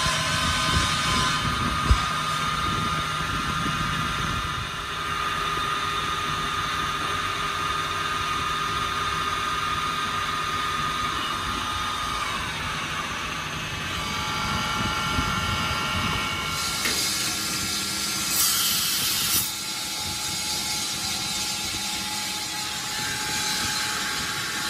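Metalworking machine running steadily with a high whine, with a sharp knock about two seconds in and a brief hiss near the end.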